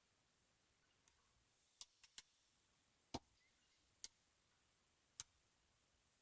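Faint, sharp metallic clicks of a lock pick working the pins inside a Locksmiths Own lock during single-pin picking, about seven at irregular intervals, the loudest about three seconds in.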